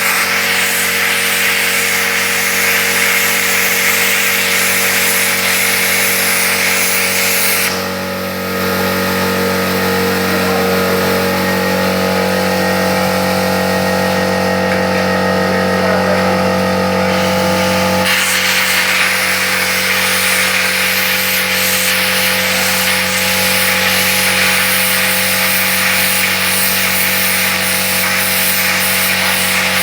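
Plasma cutter running: a steady, loud hiss and buzz over a constant hum. The hiss drops away for about ten seconds from around eight seconds in, leaving the hum, then comes back.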